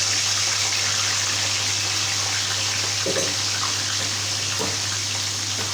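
Kitchen tap water running steadily, an even hiss over a low steady hum.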